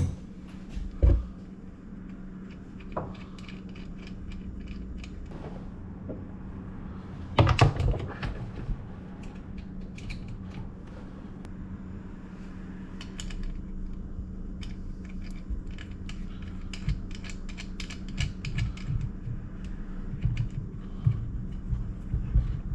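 Small metal clicks and clinks of hand work on a boat battery's terminals, fitting a charger's leads and nuts, with a couple of louder knocks about a second in and around seven seconds in.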